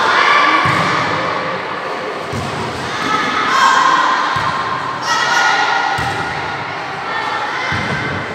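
Girls shouting and cheering in bursts during a volleyball rally, with thuds of the ball being struck.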